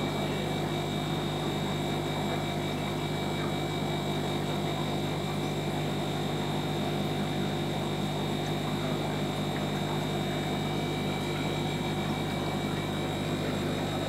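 Steady mechanical hum of aquarium equipment, a low drone with a thin high whine over a constant hiss, unchanging throughout.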